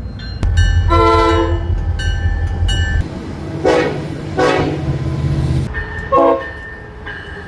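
Train horns sounding: a multi-tone horn blast over a locomotive's low rumble in the first few seconds, then, after an abrupt change in background about three seconds in, several shorter horn toots and a brief blast about six seconds in.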